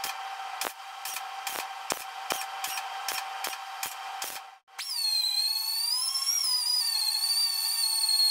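MIG welder filling drilled holes in car body sheet metal with short tacks: a regular series of sharp crackling pops, about two and a half a second, over a steady hum. About four and a half seconds in the welding stops, and a small grinder spins up with a high, wavering whine as it grinds the fresh welds down.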